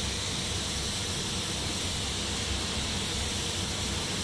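Gravity-feed paint spray gun being triggered: a steady hiss of compressed air atomising paint, cutting off near the end, over a steady low rumble.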